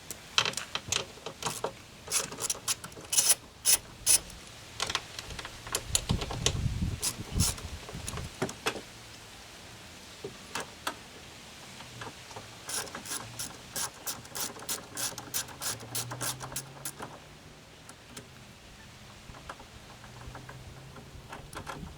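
Ratchet wrench clicking in runs of quick strokes as an 8 mm socket loosens the mirror bolts on a car door.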